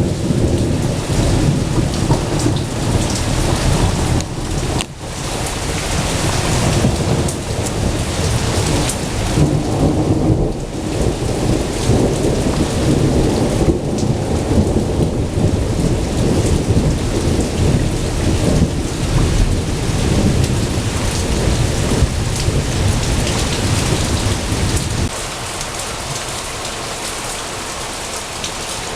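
Thunderstorm: heavy rain on surfaces under long, continuous rolling thunder. The thunder cuts off about 25 seconds in, leaving steady rain.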